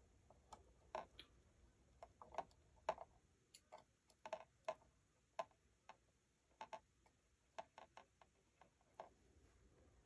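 Faint, irregular light clicks and taps, about twenty spread unevenly, like small hard objects being handled.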